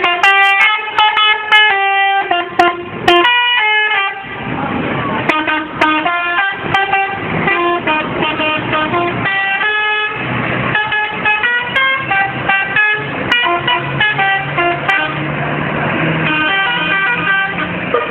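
Bus 'telolet' horn playing quick tunes of stepped musical notes, several pitches sounding together, over and over. About halfway through, a low steady hum joins under the horn notes.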